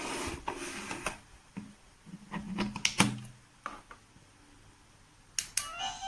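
Plastic clicks and knocks as a wireless doorbell receiver and transmitter are handled and their buttons pressed. Near the end the Coolqiya receiver starts playing its electronic chime melody, set off by the transmitter's button press during pairing.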